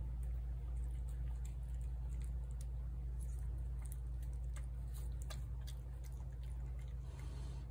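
A cat eating wet food from a plate: soft, scattered clicks of chewing and licking over a steady low hum.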